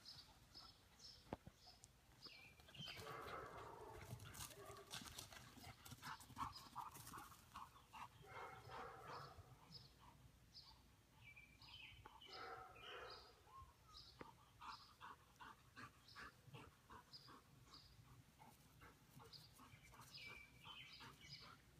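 Faint outdoor ambience: a small bird chirps over and over in short high notes, while a dog's quick, rhythmic panting comes and goes in runs.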